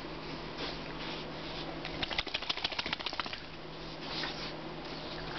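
Shar-Pei dog sniffing about in short snuffs, with a rapid run of about a dozen quick scratchy strokes starting about two seconds in and lasting about a second and a half.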